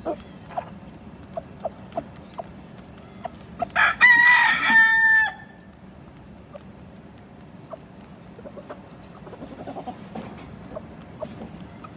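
A rooster crows once, a loud call of about a second and a half starting about four seconds in, over the soft, scattered clucking of chickens feeding.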